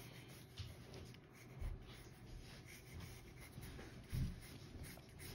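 Wooden pencil scratching lightly on paper as an outline is drawn, with two soft low thumps, one about two seconds in and one about four seconds in.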